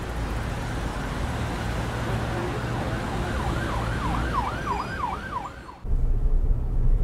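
A siren-like warble sweeping quickly up and down about three times a second, over a steady noise and low rumble, cutting off suddenly near the end. It is followed by the low hum of a car's cabin while driving.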